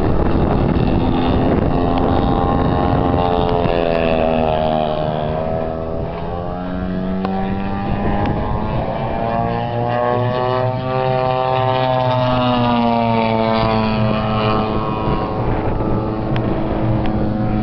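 Four-stroke engine and propeller of a large radio-controlled Extra 300 aerobatic plane in flight, its note rising and falling repeatedly as it works through manoeuvres.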